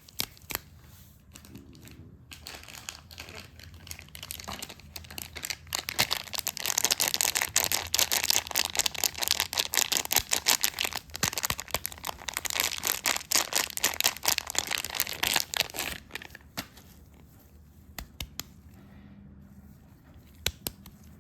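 Soap wrapping crinkling and tearing as it is unwrapped by hand close up: a dense run of crackles, loudest from about six to sixteen seconds in, with lighter scattered crinkles before and a few separate clicks near the end.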